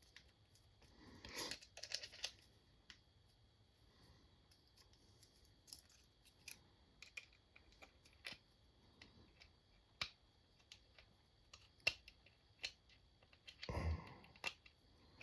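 Faint, scattered clicks and light rattles of small rotary-tool parts being handled and fitted into the tool, with a short rustle about a second in and another near the end.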